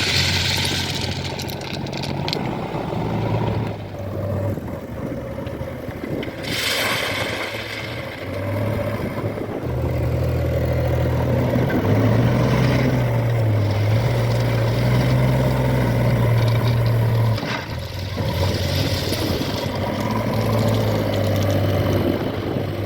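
Heavy diesel machinery engine running, its note rising under load for several seconds in the middle, with a couple of brief rattling bursts.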